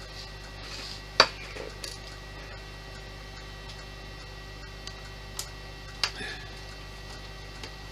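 A few sharp clicks and light clinks of small screws and model parts being handled and set down during disassembly of a model aircraft. The loudest comes about a second in and another about six seconds in, with fainter ones between, over a steady low hum.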